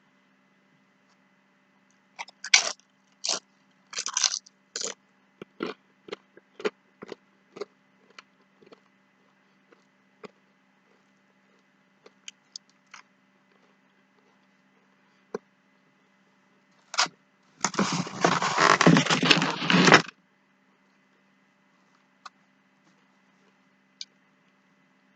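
Eating sounds: crunching and clicking from chewing nachos and handling the food, close together for several seconds starting a couple of seconds in, then only occasional ticks. About seventeen seconds in, a louder noisy sound lasts about two and a half seconds.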